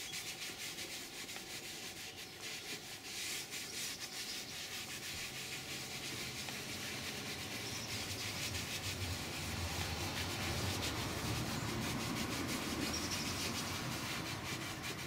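Damp foam sponge rubbed in circles over a Rolls-Royce Silver Spirit II's leather seat, working leather cleaner into a light foam: a steady scratchy rubbing that grows a little louder about halfway through.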